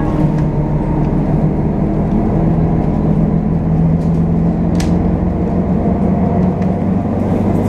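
City bus driving at speed, heard from inside the passenger cabin: a steady engine and road drone with a low hum that rises a little in pitch midway, and a single short click about five seconds in.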